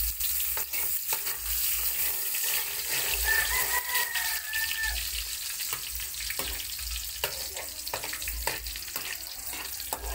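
Minced garlic sizzling in hot oil in a wok, stirred with a metal spatula that scrapes and clicks against the pan.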